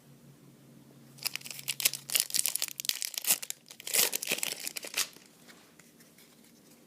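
A trading-card booster pack wrapper being torn open and handled, a run of papery tearing and rustling from about a second in until about five seconds in.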